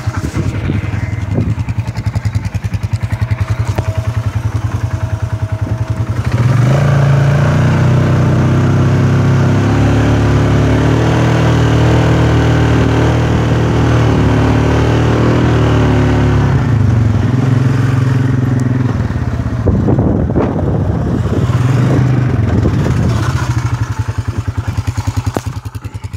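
Quad bike engine running, revving up about six seconds in and holding there as it drives over the sand. It drops back after about eleven seconds, then gives a few short bursts of throttle.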